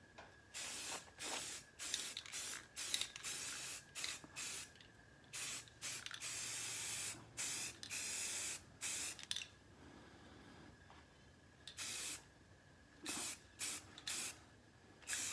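Aerosol can of Rust-Oleum 2X flat grey spray paint hissing in a quick series of short bursts, a few held for over a second, with a pause of about two seconds past the middle.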